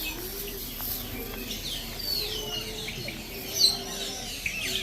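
Birds chirping and calling in an aviary: many short whistled notes, some sliding down in pitch, overlapping from several birds.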